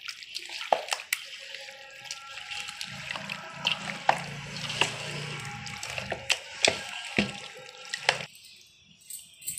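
A hand squelching and sloshing chicken pieces through a wet yogurt marinade in a steel bowl, with many short wet smacks and clicks. It eases off for a moment near the end.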